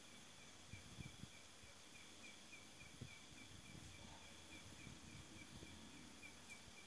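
Faint night insects: a cricket chirping steadily about four times a second over a steady high hum of other insects. A few soft low thumps sound about a second in and again about three seconds in.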